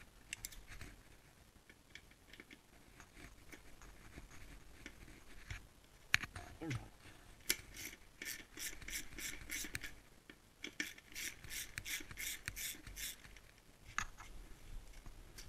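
Socket ratchet wrench with an extension and hex bit clicking as it turns a fairing bolt, in two runs of quick, even clicks in the middle and second half, with scattered single tool clicks and handling noise around them.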